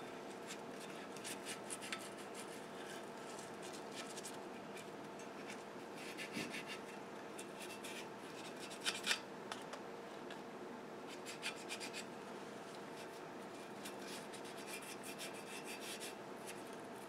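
Faint, irregular rubbing and scratching of a paintbrush working thick asphaltum japanning onto a cast-iron Stanley plane body, with a few louder scrapes about 2, 9 and 11 seconds in.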